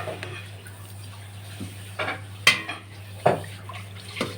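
Kitchen utensils clinking against a cooking pot about five times, sharp knocks with a little ringing, as broth is added to a pot of rice.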